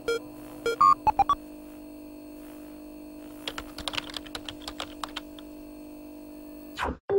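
Retro computer start-up sound effects: a steady electrical hum with a few short electronic beeps in the first second and a half, then a run of keyboard typing clicks about three and a half to five seconds in, matching text being typed on screen.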